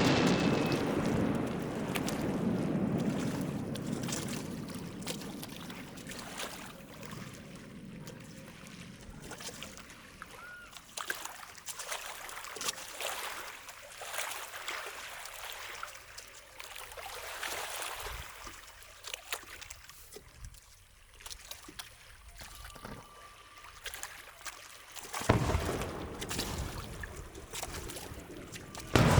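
Fireworks display: the echoing rumble of an aerial shell burst fades away, followed by a long stretch of sharp crackling pops. Another loud burst comes about 25 seconds in, and a third just at the end.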